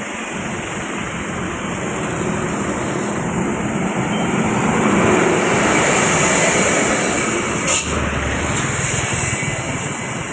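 Traffic noise on a wet road: engine rumble and tyre hiss while moving close past heavy trucks, swelling in the middle as a big truck is passed. There is a brief knock about eight seconds in.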